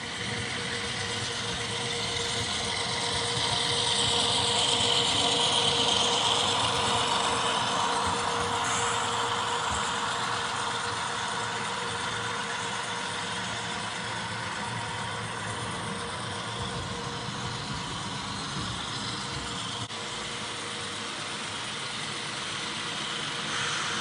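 HO scale model train running on the layout: a steady engine-like hum from the locomotive together with the running noise of the train, swelling louder for a few seconds and then evening out.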